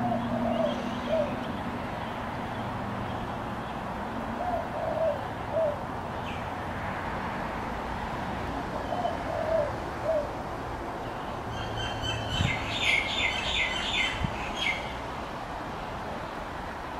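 A pigeon cooing a short phrase of three or four notes, repeated about every four seconds, over a steady background hiss. A small bird chirps a quick run of high notes about twelve seconds in.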